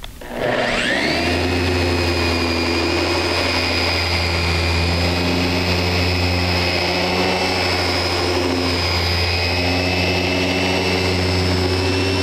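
Festool Rotex sander started with its pad on the wood: the motor whine rises as it spins up over the first second or so, then it runs steadily, sanding walnut with 80-grit paper.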